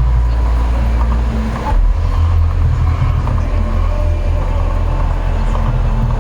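Loud, deep rumble from the Mirage volcano show's eruption effects, steady and shifting lower about two seconds in.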